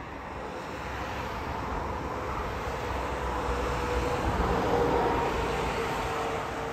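Train running: a steady rumble and rush with a faint whine, swelling to its loudest about five seconds in and then easing slightly.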